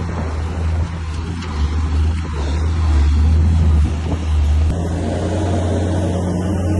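Bulldozer's diesel engine running with a loud, steady low drone; its tone changes about three-quarters of the way through.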